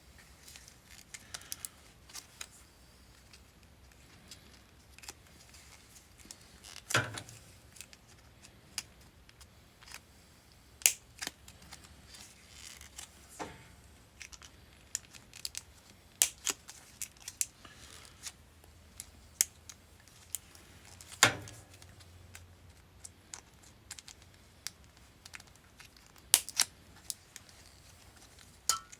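Brittle 40-year-old hard plastic sheathing being cut and cracked off a wiring harness: irregular sharp clicks and snaps with quiet stretches between them.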